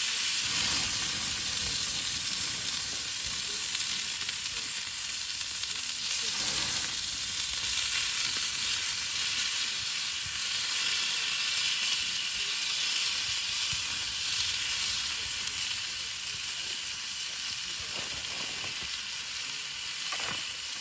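Food sizzling steadily in a hot pan, a dense high hiss, with a few brief lower sounds of the food or pan being handled.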